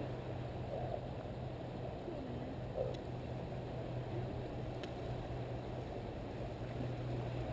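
Steady low drone of a boat's motor running offshore, with faint distant voices and a couple of soft clicks.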